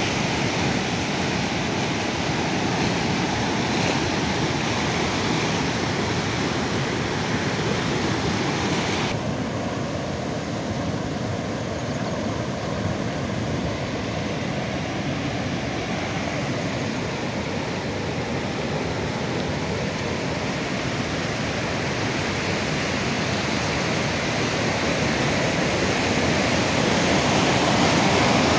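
River water pouring over a weir: a steady, even rush of noise that turns slightly duller about nine seconds in.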